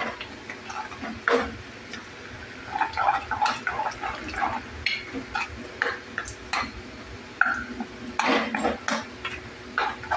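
Steel ladle stirring a thin potato curry in a steel kadhai, knocking and scraping against the pan at irregular intervals amid wet sloshing of the gravy.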